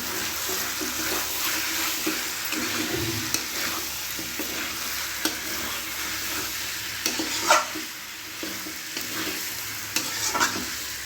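Spiced chicken pieces frying in oil in a pan, sizzling steadily while being stirred, with a spatula scraping and knocking against the pan now and then, most sharply about two-thirds of the way through. This is the chicken being browned with tomato, chilli powder and turmeric before yogurt goes in.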